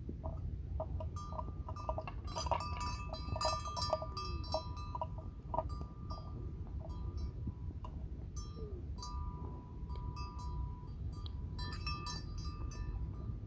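Bells clinking and ringing in irregular clusters, busiest in the first third and again near the end, with some ringing notes held about a second. Underneath is a steady low rumble.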